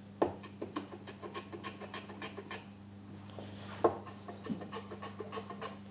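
Stanley 60 1/2 low-angle block plane working on the end grain of a wooden block: light scratching with scattered clicks, and a sharper knock about four seconds in.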